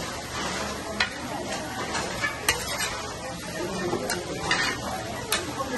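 Dakgalbi (spicy chicken, cabbage and rice cakes) sizzling in a round metal pan while a metal spatula stirs and mixes it. The spatula scrapes the pan and clinks against it about four times.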